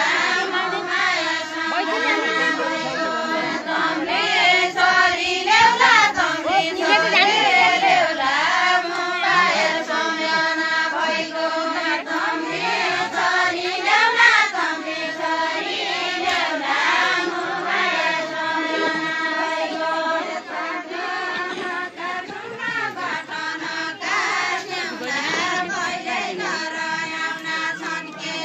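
A group of women's voices singing a Deuda folk song together without instruments, in long held notes that waver and swell.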